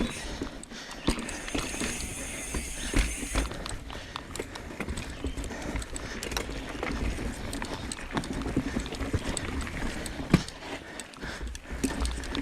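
Full-suspension carbon mountain bike climbing a rough singletrack trail: tyres and frame knocking and clattering irregularly over roots and rocks, over a steady low rumble of wind on the camera.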